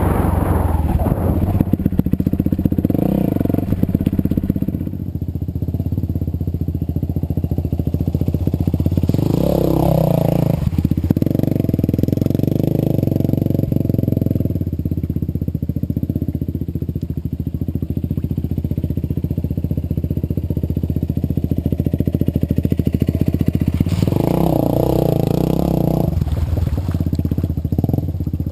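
Yamaha WR450F's single-cylinder four-stroke engine running at idle after a rebuild with a new piston and rings, with a few short throttle blips: about 3 seconds in, around 10 seconds, and near the end.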